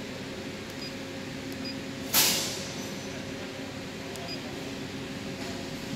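CNC plasma cutting machine humming steadily, with three faint short high beeps from the controller keypad as keys are pressed. About two seconds in comes a sudden loud hiss that fades over about half a second.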